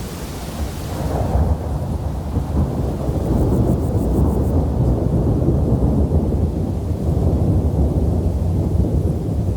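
Thunderstorm: a long, low rolling rumble of thunder builds about a second in over a hiss of rain and holds for several seconds before cutting off abruptly at the end.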